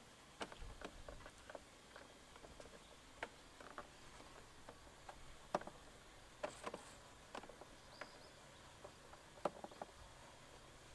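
Faint, irregular clicks and light taps of a microfiber cloth being wiped over the plastic covers and air box of a car engine bay.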